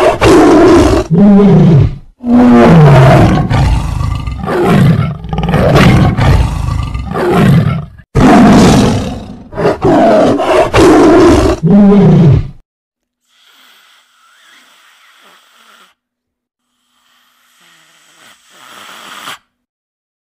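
Sound effect of a big cat roaring: a series of loud, deep roars, several falling in pitch, for about the first twelve seconds. It is followed by faint, quieter sounds.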